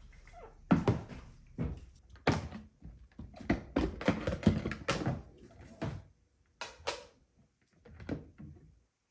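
A run of irregular knocks and clunks of kitchenware being handled, about a dozen over six seconds, then a few softer ones near the end.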